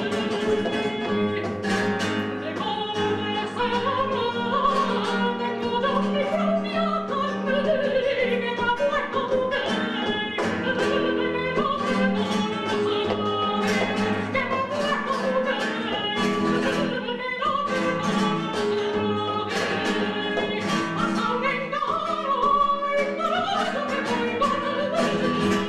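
A soprano singing a flamenco cante in a trained operatic voice, the line sliding through long ornamented runs. She is accompanied by an acoustic flamenco guitar playing repeated strummed chords.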